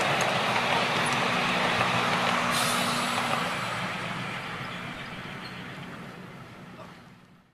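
Ride-on miniature railway train rolling past on its track, the passenger carriages' wheels running on the rails, then fading away as the train moves off.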